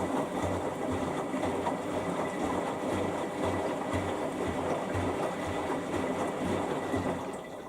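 Samsung EcoBubble washing machine running on its rinse, a steady churning with a low pulse about twice a second. It drops away sharply near the end.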